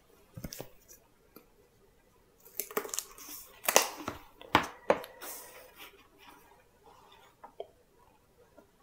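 Paper pages of a book being handled and leafed through: a light knock or two near the start, then several short, sharp rustles of turning pages in the middle, trailing off into faint clicks.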